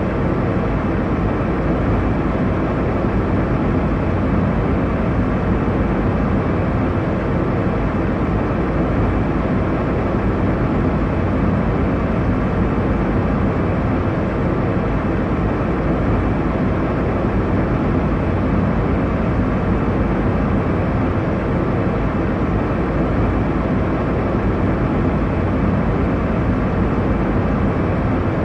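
Steady airliner cabin noise: the low, even rush of engines and airflow heard from inside the passenger cabin in flight, unchanging throughout.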